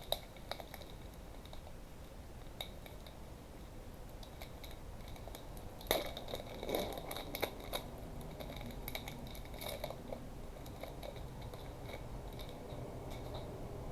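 Trading-card pack wrapper being torn open and crinkled, with cards handled, in scattered crackles and clicks; the loudest tear comes about six seconds in.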